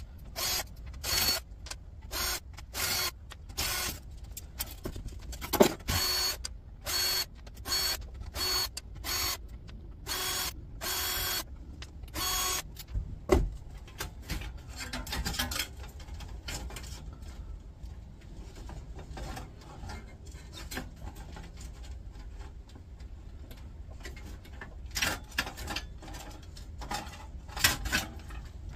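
Cordless drill-driver backing out the fan and power-unit mounting screws from a steel tower case, in many short motor whirs one after another through the first twelve seconds or so. After that, quieter handling of loose parts and wires, with a few light clinks near the end.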